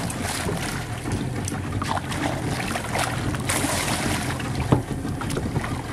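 Steady hum of a boat motor under wind on the microphone, with a hooked trevally thrashing and splashing at the surface alongside the boat; a couple of sharper splashes come in the second half.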